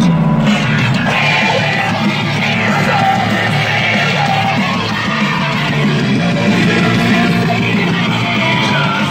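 Rock music with yelled, shouted vocals over a heavy band.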